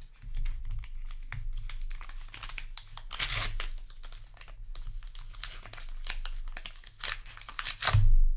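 Foil booster pack wrappers crinkling as they are handled, with a run of short crackles and louder bursts of crinkling about three seconds in and near the end.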